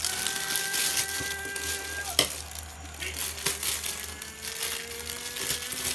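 Plastic courier mailer bag crinkling as it is handled and cut open with scissors, with scattered small clicks and one sharper click about two seconds in.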